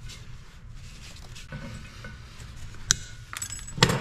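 Small metallic clinks and rattles of wire and hand tools being handled on a propeller-shaft coupling, with two sharp metal clicks, one about three seconds in and the louder one just before the end.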